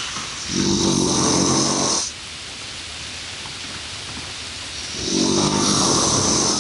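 Snoring: two rough, rattling snore breaths about four and a half seconds apart, over a steady hiss.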